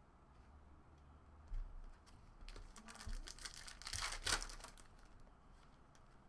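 Trading cards being handled and flipped through: a run of soft clicks and rustling, busiest between about one and a half and four and a half seconds in.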